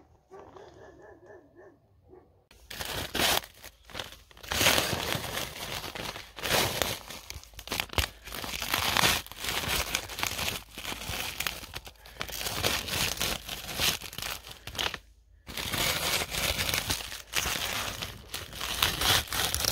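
Frost and thin ice being scraped off a car's surface with a scraper blade: repeated crunchy scraping strokes starting about two and a half seconds in, with a brief pause about three quarters of the way through.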